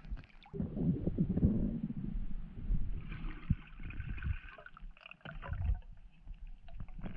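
Sea water sloshing and rumbling, heard muffled from a diver's camera as it goes from the surface to under water, with scattered knocks. A higher bubbly hiss from about three to five seconds in, like bubbles under water.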